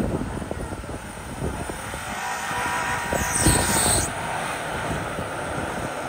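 Nissan SUV's engine working under load as it tows an off-road camper trailer up through deep snow, tyres churning the snow. A brief louder hiss about three and a half seconds in.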